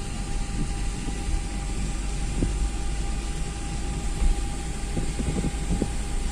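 Vehicle driving along a road, a steady low road-and-engine rumble with a few faint knocks.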